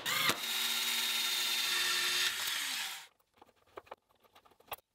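Cordless drill-driver driving a wood screw into a wooden block, running steadily for about two and a half seconds and then winding down with a falling pitch. A few faint clicks follow as a wrench turns a nut on threaded rod.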